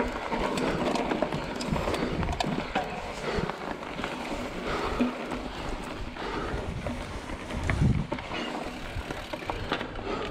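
Trek Fuel EX 5 29er trail bike rolling over a dirt and grass trail: a steady rush of tyre noise on the ground with many small clicks and rattles from the bike.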